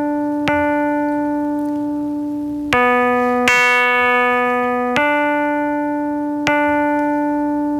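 Music from a TV ad's soundtrack: single long held notes, each struck sharply and slowly fading, with a new note about every one to two seconds.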